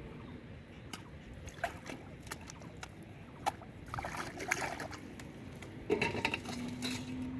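Shallow pond water splashing as bamboo rods are worked and pulled out of it, with a few light clicks and knocks. Near the end comes a sharp knock as the rods are laid on a steel bowl, followed by a steady low hum.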